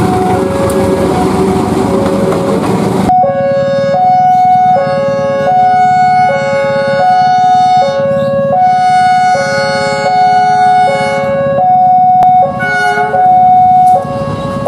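A loud two-tone electronic warning signal, alternating steadily between a low and a high note, each held a little under a second. Background noise under it cuts out suddenly about three seconds in.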